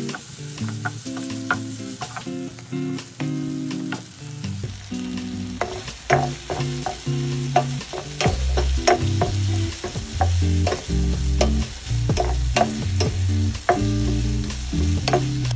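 Pork belly and eggplant sizzling as they are stir-fried in a nonstick pan, with a spatula scraping and knocking against the pan many times. Background music plays throughout.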